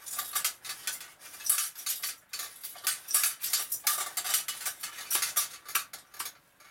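Brass screw threads of a GR6S flame safety lamp grating as the upper section is screwed down onto the base by hand: a quick, irregular run of small metallic scrapes and clicks.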